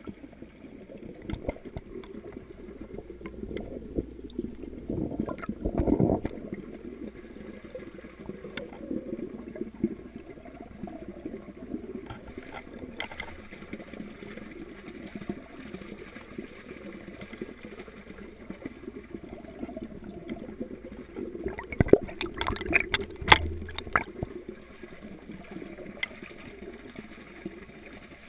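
Water gurgling and trickling steadily in an aquaponics fish tank, with a louder surge about six seconds in and a cluster of brief sharp sounds around twenty-two to twenty-four seconds in.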